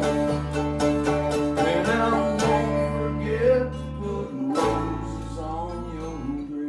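Acoustic guitars strumming a country-rock song with a male voice singing over them. The chord changes a little past halfway through.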